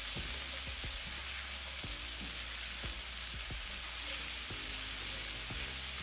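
Diced sweet potatoes, carrots, onion and celery sizzling steadily in oil in a skillet while being stirred with a silicone spatula, which scrapes and taps against the pan every second or so.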